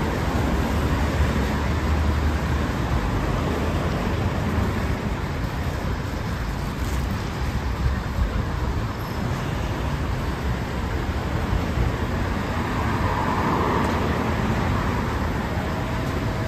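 Steady road traffic noise from cars passing on a city street beside the sidewalk.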